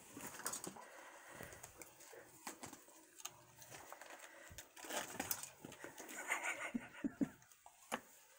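Kittens batting and pouncing at toys dangling from a scratching post: scattered taps, knocks, scratches and rustles, busiest in the second half.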